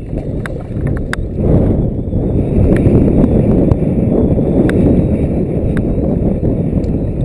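Wind buffeting the microphone, a loud low rumble that grows heavier about a second and a half in, with scattered light clicks and knocks.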